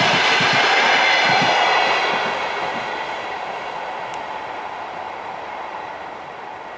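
The last coaches of a passenger train rolling past on the rails, with wheels clacking over rail joints for about the first second and a half. After that the rumble of the receding train fades away steadily.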